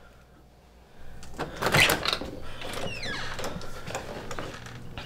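A glass-paned door being unlatched and opened: a loud clatter of handle and latch about a second and a half in, followed by smaller knocks and a short falling squeak.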